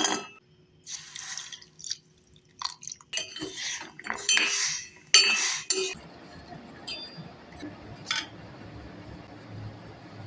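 Kitchen utensils and ingredients in a bowl: sharp clinks with short scraping, pouring sounds for about six seconds, then a low steady hum with a couple of faint clicks.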